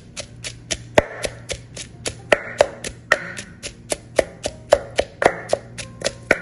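Wooden pestle pounding dry-roasted chilies, shallots and garlic in a clay mortar: a steady run of sharp knocks, about four a second, some ringing briefly from the mortar.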